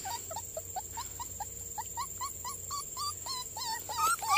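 Young puppies crying: a quick run of short, high calls that rise in pitch, several a second, getting louder near the end.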